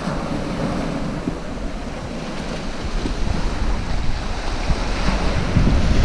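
Small waves breaking and washing up a shingle beach, with wind buffeting the microphone as a low rumble that grows louder toward the end.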